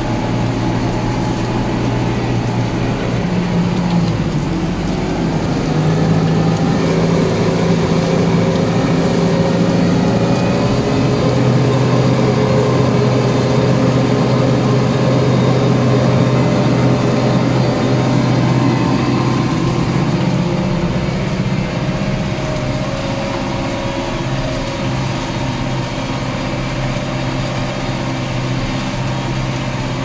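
Massey Ferguson tractor engine running steadily under ploughing load, heard from inside the cab; the engine note shifts in pitch a few times.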